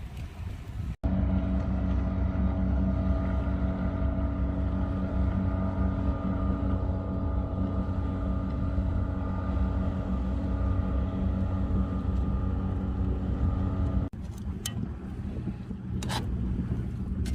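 A steady motor drone at constant pitch, such as a vehicle engine running, starting and stopping abruptly at edits about a second in and near the end.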